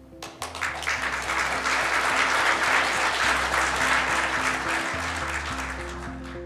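Audience applauding, starting about half a second in and dying away, with background music underneath; the applause cuts off abruptly near the end, leaving only the music.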